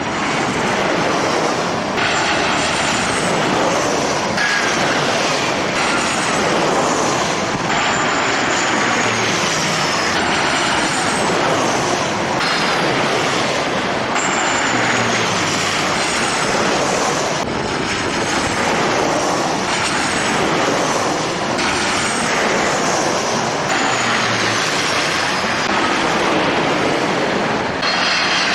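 Jet airliner engines running: a steady, loud rush with high-pitched whines that fall in pitch again and again, every couple of seconds.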